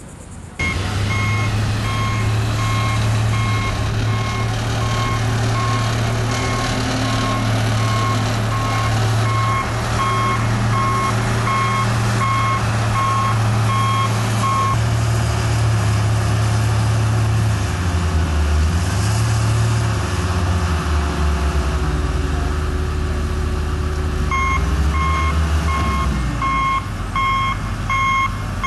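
Wheel loader's diesel engine running with its reversing alarm beeping about once a second. The beeping stops about halfway through while the engine note shifts up and down under load, and it starts again near the end.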